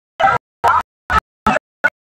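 Audio cut into short bursts with dead silence between them, about two a second, each burst shorter than the last: a stutter editing effect over a noisy mix.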